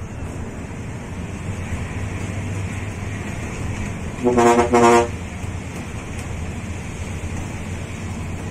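Steady diesel engine and road noise of a Hino RK8 R260 coach under way. About halfway through, its ship-style air horn sounds two short blasts, one steady tone each, loud over the engine.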